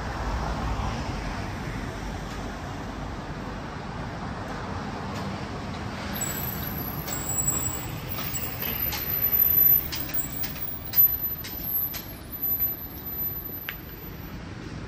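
City street traffic noise, with a vehicle passing close at the start. In the second half a run of sharp clicks and knocks stands out over the steady road noise.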